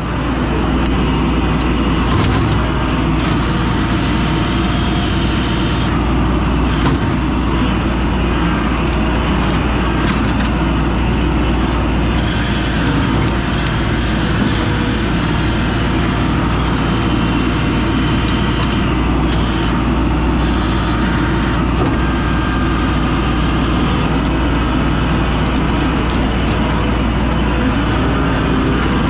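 Skid steer engine running steadily at a constant pace, a heavy low drone throughout.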